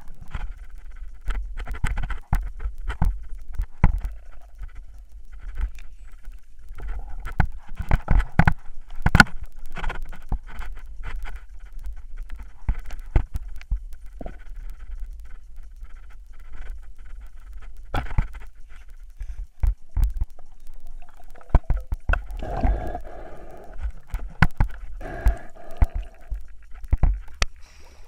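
Underwater noise from a spearfisher swimming along a river bottom, heard through a waterproof camera: a steady low rumble with many irregular sharp clicks and knocks, and a louder rush of noise a few seconds before the end.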